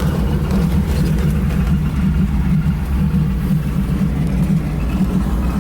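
Floatplane engine running with a steady, even low drone.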